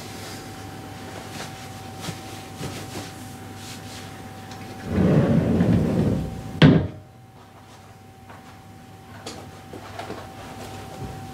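A closet's sliding door rumbles along its track for about a second and a half, then bangs shut against the frame.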